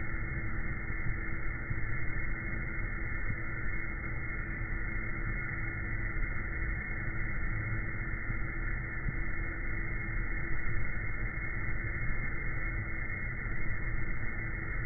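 Window air conditioner running: a steady fan noise with a constant hum underneath, unchanging throughout.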